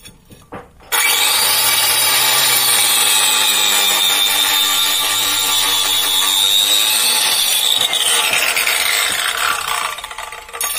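Handheld iBELL 1050 W marble cutter (multi-purpose cutter) spinning a cutting disc through a clay brick: a loud grinding whine that starts about a second in. Its pitch sinks over the last couple of seconds before it stops just before the end.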